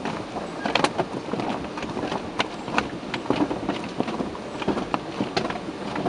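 Automatic car wash heard from inside the car: the cloth strips of the wash brushes slap and drag across the windshield and body in many irregular slaps, over a steady hiss of water spray.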